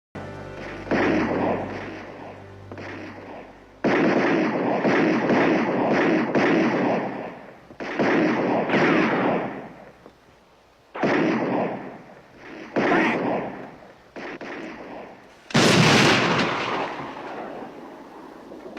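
Heavy gunfire from a large gun in a series of bursts. Each burst begins suddenly and rings out before dying away, with the loudest, sharpest blast near the end.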